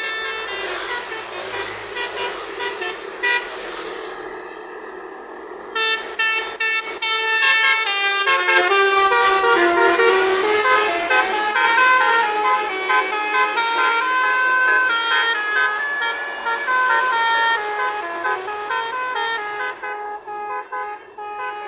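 A bus's telolet multi-tone horn playing a tune of short stepped notes that jump up and down, starting about six seconds in. Before that comes a noisier, steady blare.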